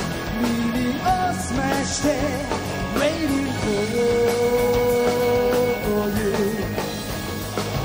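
Live pop-rock band playing, with a male lead singer singing into a microphone over drums and the band.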